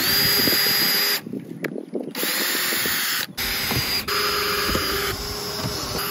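Cordless drill drilling into an RV roof through a solar panel mounting rail: a steady high motor whine that stops and restarts several times.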